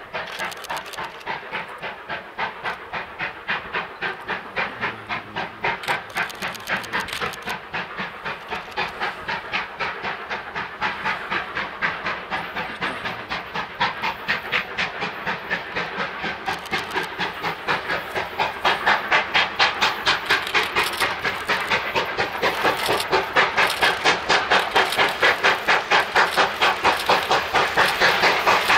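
South African Railways steam locomotive working hard, its exhaust beating in a fast, even rhythm of chuffs with steam hiss, growing steadily louder.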